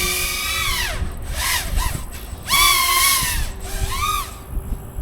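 A 3D quadcopter's electric motors and propellers revving up and down in bursts. The whine rises in pitch, holds, then falls away, with the two loudest bursts about two and a half seconds apart.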